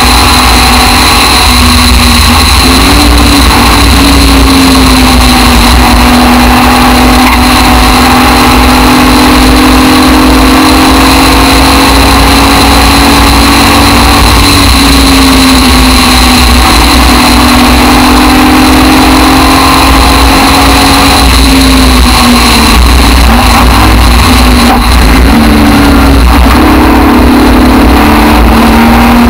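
Aston Martin DBR1 tribute race car's engine heard from its open cockpit at speed, the engine note rising and falling with throttle and gear changes, with a flurry of changes late on. Heavy low rumble of wind buffeting the microphone underneath.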